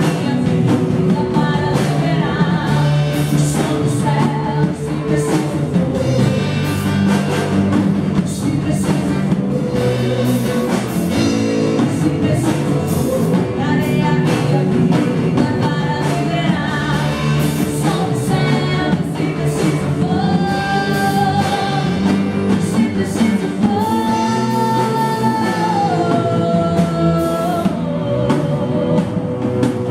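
Worship song: voices singing over a full band with drums and guitar, with long held sung notes in the second half.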